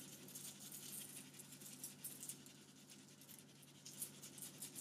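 Dry spice mix sprinkled by hand onto cauliflower steaks and parchment paper: a faint, fast scatter of tiny grains ticking down, over a low steady hum.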